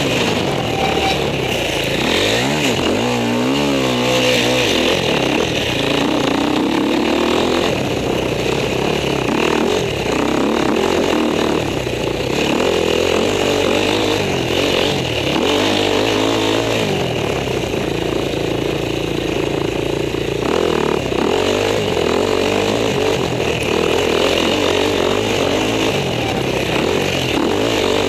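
Enduro motorcycle engine revving hard under riding, its pitch rising and falling again and again as the throttle is worked, heard from a helmet-mounted camera.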